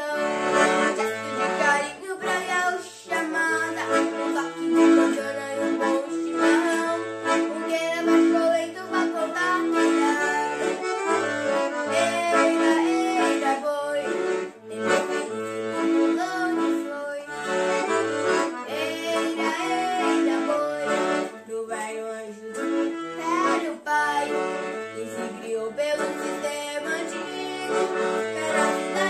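Piano accordion playing a gaúcho xote, with the melody on the right-hand keys over a steady, evenly repeating pattern of low bass notes. A child's voice sings along.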